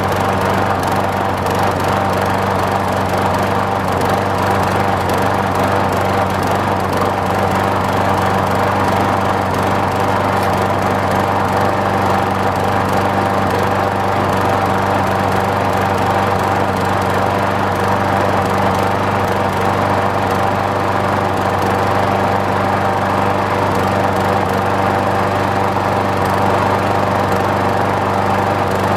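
Craftsman push mower's small engine running steadily at one constant speed after a cold start, primed with its primer bulb and fired on the first pull.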